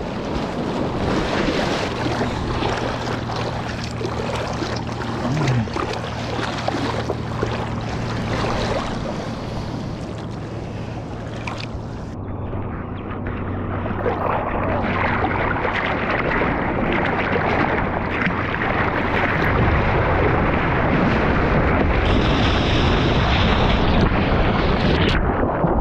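Seawater rushing and splashing around a surfboard-mounted GoPro as the surfer paddles through small surf, with wind on the microphone. About twelve seconds in the sound turns muffled as the camera dips into the water, then fills with the rush of whitewash washing over it.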